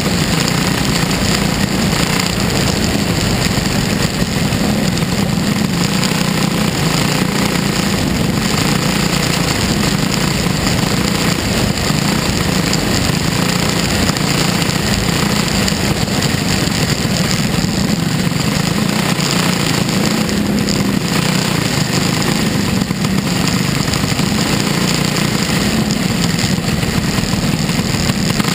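Open-wheel dirt-track race car's engine running hard at racing speed, a loud steady drone heard from an onboard camera, mixed with wind and track noise.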